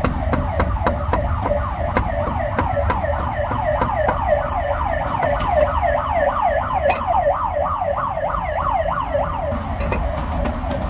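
An electronic siren sounding in quick repeated falling sweeps, about three a second, over a low traffic rumble; it stops about a second before the end.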